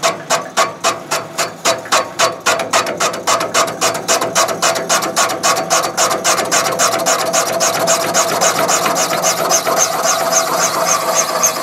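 A VGS-20 chamber cutter cutting around an intake valve seat in a 454 big-block Chevy cylinder head, unshrouding the valve. It chatters in a steady rhythm of about four strokes a second that quickens to about five during the cut, over a steady ringing tone.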